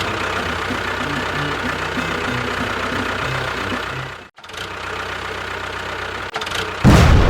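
Engine idling with a rapid, even knocking, broken by a short dropout a little past halfway, then a loud low thump near the end. Faint music plays underneath.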